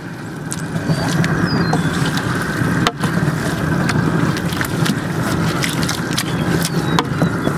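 Propane burner running steadily under a large pot, with the scrapes and knocks of a wooden paddle stirring thick chili in the pot; one sharper knock about three seconds in.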